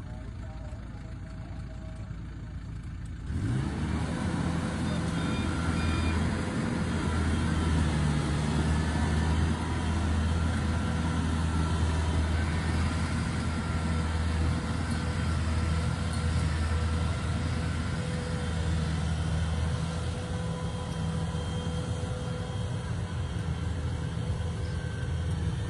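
Inari RG combine harvester's diesel engine running, jumping suddenly to a much louder, heavier sound about three seconds in and then holding steady, with a faint steady whine over it.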